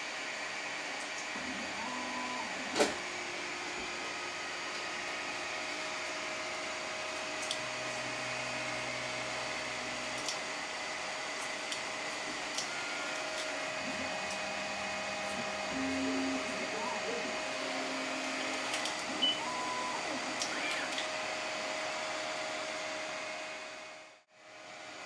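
Large home-built 3D printer running: a steady fan whir under short motor whines that step from one pitch to another as the print head moves. A sharp click about three seconds in, and the sound drops out briefly near the end.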